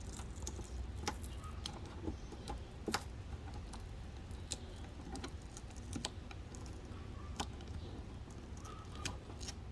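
Scattered small clicks and creaks, irregularly spaced about one to two seconds apart, as a plastic BMW trunk emblem is worked loose by hand from its adhesive, over a steady low hum.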